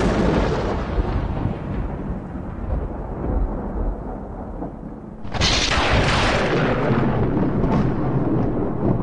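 Thunder: the rumble of one thunderclap dying away, then a second sharp crack about five seconds in that rolls on into a low rumble.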